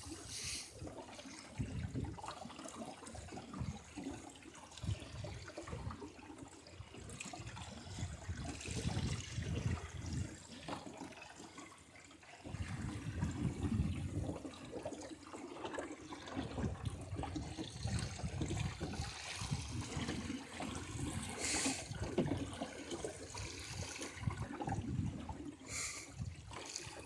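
Water rushing and gurgling along the hull of a small sailboat under way.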